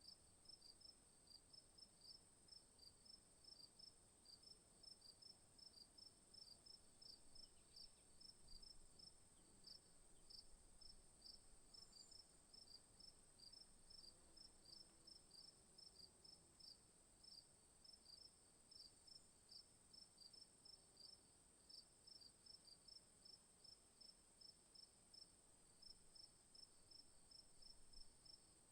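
Crickets chirping faintly: a steady high trill with a regular pulsing chirp a few times a second over it.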